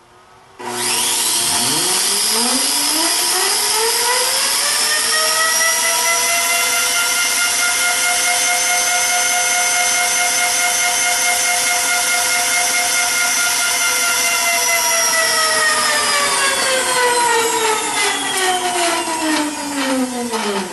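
Salvaged AC motor driving a bicycle wheel by friction, whining as it spins up with a rising pitch, running at a steady speed, then winding down with a falling pitch over the last several seconds. A regular ticking shows as the wheel slows near the end.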